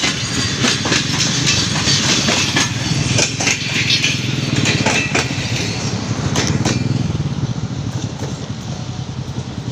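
Passenger coaches of a Pakistan Railways express rolling past close by, their wheels clacking over rail joints. About seven seconds in the clacking dies away as the tail of the train passes, leaving a quieter low rumble.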